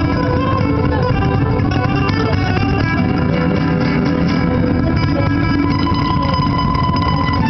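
Acoustic guitar played solo fingerstyle, plucked melody notes ringing over a steady, unbroken flow of music.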